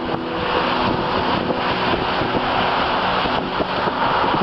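Steady wind noise on the microphone over the running of vehicle engines.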